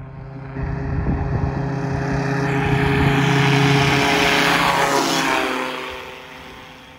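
Wildsky Goat weight-shift trike's engine and propeller at takeoff power, growing louder as it rolls toward the listener and lifts off. About five seconds in the pitch drops as it passes overhead, and the sound then fades as it climbs away.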